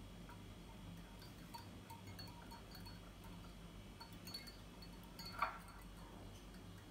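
Small wire whisk beating egg in a small glass cup: faint, irregular clinks of metal against glass, with one louder clink about five seconds in.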